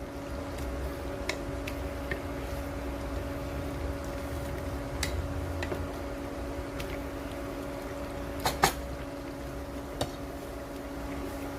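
Kitchen stove-side sounds: a steady low hum with scattered clicks and knocks of utensils and cookware, the loudest a quick double clack about eight and a half seconds in and another knock about a second later.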